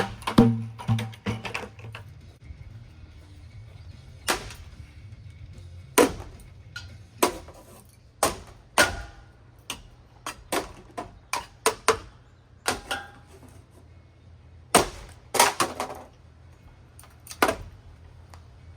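Repeated sharp metal impacts at uneven intervals as a rusty ceiling fan is smashed apart, some strikes ringing briefly. A steady low hum runs underneath.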